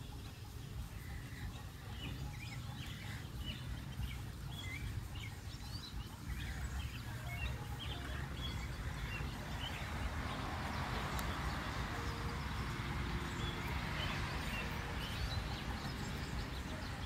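Birds chirping repeatedly over a steady low rumble, with the hiss of light rain on concrete pavement building about six seconds in and then holding.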